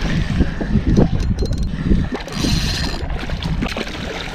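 Water sloshing against a kayak hull, with wind rumbling on the microphone. A short burst of fine clicking comes about a second and a half in.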